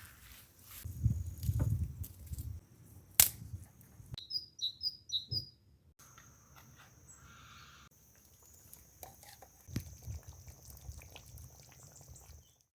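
Small bird chirping in a quick series of short high calls in the middle, among scattered knocks and low thumps, with one sharp knock a little before the chirps. A steady high thin tone runs through the later part.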